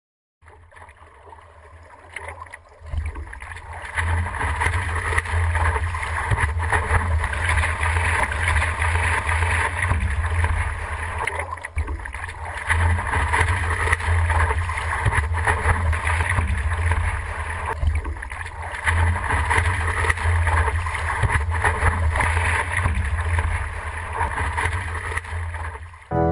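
Boat under way on open water: a steady low rumble with rushing, splashing water, fading up over the first four seconds.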